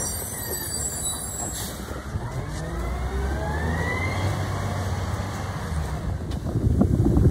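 Rear-loader garbage truck engine running as the truck pulls away, with a whine rising in pitch a few seconds in as it accelerates. Wind buffets the microphone near the end.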